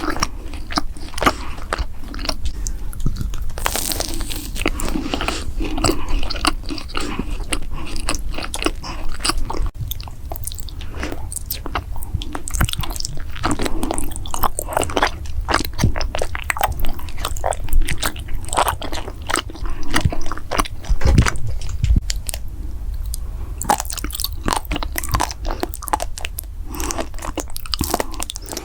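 Close-miked biting and chewing of crunchy desserts and snacks: many sharp crunches in a row, one after another, with a short pause about a third of the way through.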